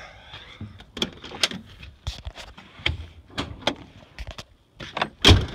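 Pickup truck door being opened and handled: a run of sharp clicks and knocks from the latch and door, with one heavy thump near the end.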